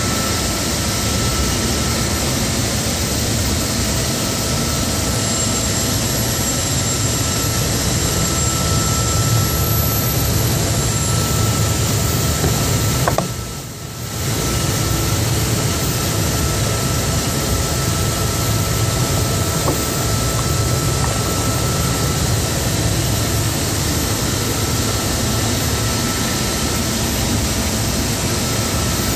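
Homemade belt sander driven by a salvaged washing-machine motor through a V-belt and pulleys, running steadily: a continuous hum and rush of machine noise with a faint steady high whine. The sound briefly drops away about halfway through, then comes back.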